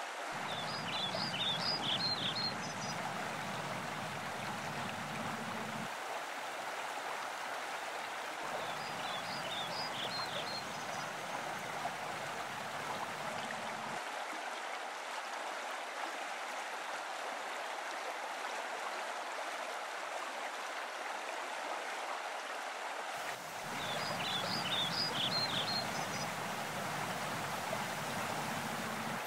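Stream water running steadily, with a few short clusters of high chirps three times.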